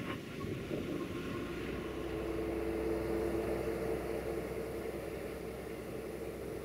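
Roman Diesel 10.215 tipper truck's diesel engine running steadily as the loaded truck pulls away, a steady droning tone joining about a second and a half in, the whole sound slowly fading.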